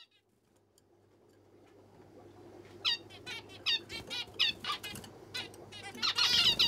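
Caged finches calling: short, repeated chirps begin about three seconds in, a few a second, then crowd into a dense, louder burst of calls near the end. Under them runs a low steady hum that fades up from silence at the start.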